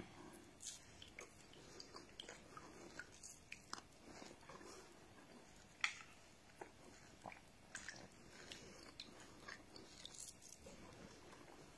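Faint eating sounds: a metal spoon clicking and scraping against a bowl of soaked garri, with chewing and mouth sounds in between. The clicks come now and then, the loudest about six seconds in.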